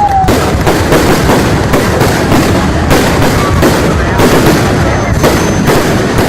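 Fireworks display: a rapid, continuous barrage of shell bursts and crackling, several reports a second with no pause.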